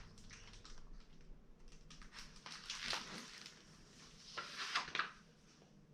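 Pages of a hardcover picture book being handled and turned: two bouts of paper rustling, about two and a half seconds in and again near five seconds, the second louder.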